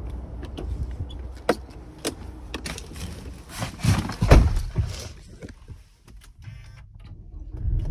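Clicks, knocks and rubbing of someone moving about and handling controls inside a Toyota RAV4's cabin, with one louder, deep thump about four seconds in. Near the end a low steady hum comes up as the car is switched on.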